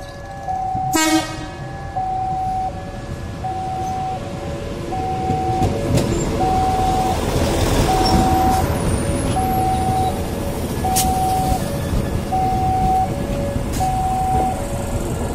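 The twin warning sirens of a railway level crossing sound as two electronic tones, each repeating about every second and a half and out of step with each other. A short horn toot comes about a second in. A passing train's rumble swells in the middle.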